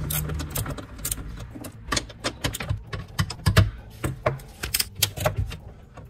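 Socket ratchet clicking in quick, irregular runs as the steel mounting bolts of a BMW E36 rear wiper motor are loosened, after a brief steady hum in the first half second.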